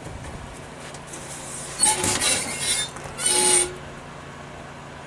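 Tape being pulled off the roll in two quick screeching strips, the second shorter, as it goes onto the console for tracing the cut-out.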